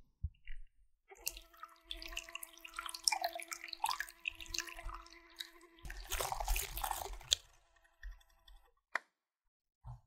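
Egg yolks and melted chocolate being whisked together in a glass bowl: quick wet clicking and squelching over a steady ringing tone for about five seconds, then a louder scraping stretch for a second or so. A single clink near the end.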